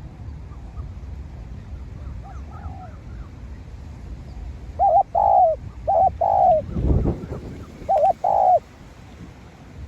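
Spotted dove cooing: three loud two-part coos, each a short note followed by a longer rolling one, about a second or so apart, with fainter coos a few seconds earlier. A brief low rumble sounds between the second and third coo.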